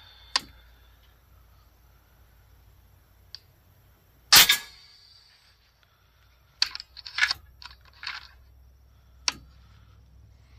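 A single shot from an FX Panthera 500 .30-calibre PCP air rifle: one sharp report about four seconds in, with a short tail. About two seconds later comes a quick run of clicks as the side-lever action is cycled for the next pellet, and a few lone clicks fall before and after.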